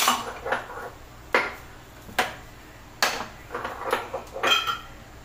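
Kitchen dishes and utensils knocking and clinking, about six separate sharp knocks a second or so apart, as food is served onto a plate.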